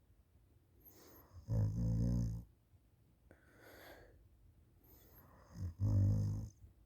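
A person snoring open-mouthed in deep sleep: two loud snores about four seconds apart, each lasting about a second, with a softer breathy exhale between them.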